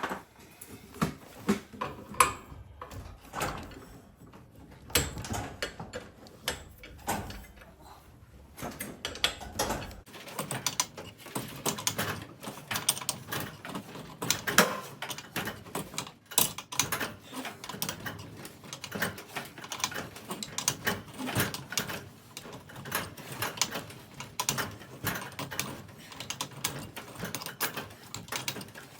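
Steel winding bars clinking and knocking in the winding cone of a garage door torsion spring, as the spring is unwound hand over hand a quarter turn at a time. Irregular metal clicks, several a second.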